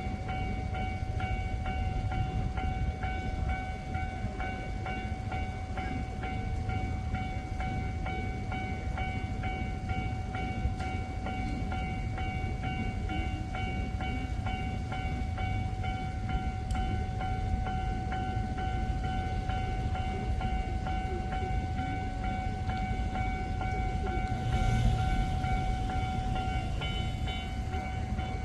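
Japanese level-crossing warning bell ringing continuously, a steady repeating electronic chime, over the rumble of Keio Line electric trains running through the closed crossing. The train noise swells louder and hissier about three-quarters of the way through.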